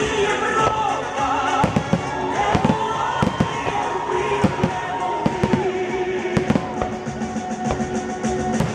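Fireworks salute: a rapid series of bangs and crackles, thickest between about two and seven seconds in, over music playing.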